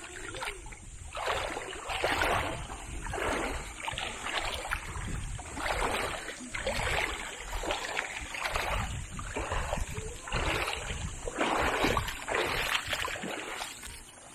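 Footsteps wading through a shallow river, sloshing and splashing about once a second at a walking pace, over a low rumble.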